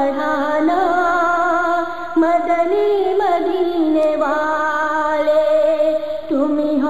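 Urdu naat sung by a high voice, holding long notes that waver and slide in pitch.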